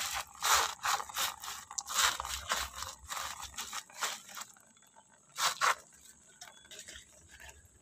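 Hands rubbing and pressing a wet cloth sheet flat inside a plastic bucket water filter, making irregular scraping and crunching strokes. The strokes are dense for the first few seconds, then thin out, with one more rub a little after five seconds.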